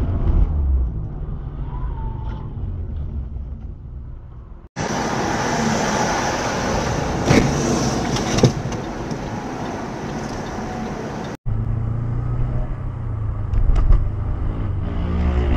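Road and engine noise inside moving cars, heard through dash cams, changing abruptly twice as the recording cuts between clips. The middle stretch is hissier, with two sharp knocks about a second apart.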